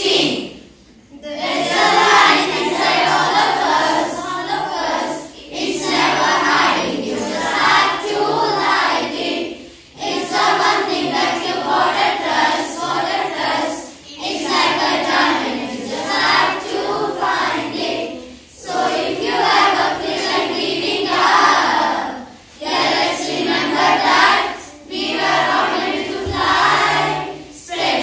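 A children's school choir singing together, in phrases of a few seconds broken by short pauses for breath.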